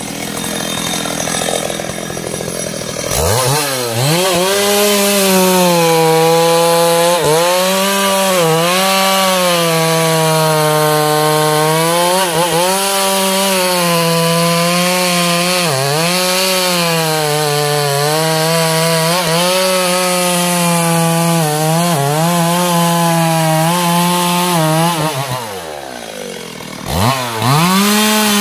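Two-stroke chainsaw cutting into a teak trunk near its base. It revs to full throttle about three seconds in and holds there, its pitch dipping again and again as the chain bogs in the wood. About 25 s in it drops back to idle, then revs up again near the end.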